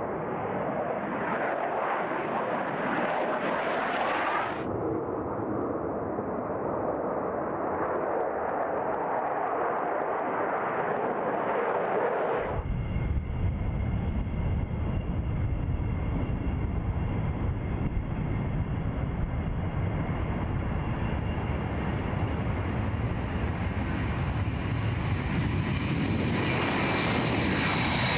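Military jet engines in successive runway clips: the jet roar of an F-16 taking off, which cuts abruptly about twelve seconds in to a B-52 bomber's eight turbofan engines. These give a deep rumble with a steady high whine over it, and the whine rises near the end.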